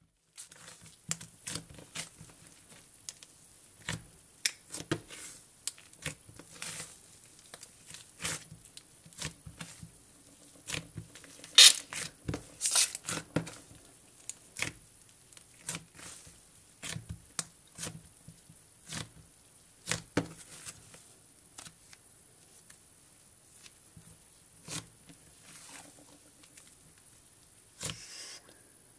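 Pink Model Magic clay, worked with lotion and hair conditioner into butter slime, squished and pulled apart by hand: irregular soft crackles and pops, the two loudest a little before the middle.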